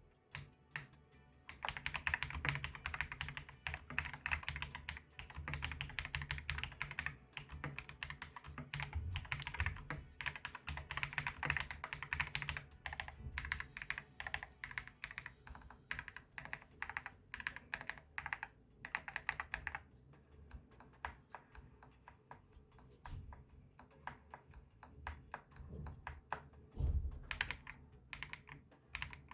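Typing on an AK-650 mechanical keyboard fitted with MMD Holy Panda tactile switches (67 g, lightly lubed at the factory). A fast, dense run of keystrokes starts a second or two in and thins to sparser presses in the last third.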